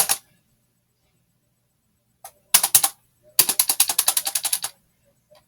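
Computer keyboard keys being pressed: a few separate clicking keystrokes, then a quick run of about a dozen keystrokes a second for just over a second.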